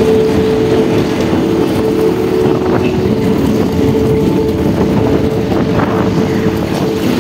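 Motorcycle engine running steadily while riding, its pitch and level holding even.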